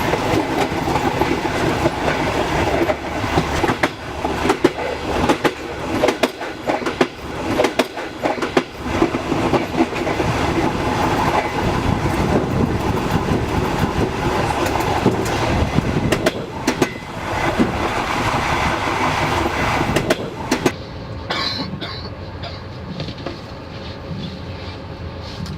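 A train running on the rails, its wheels clattering over rail joints with many sharp clicks. About 21 seconds in, the sound becomes quieter and duller as the high end drops away.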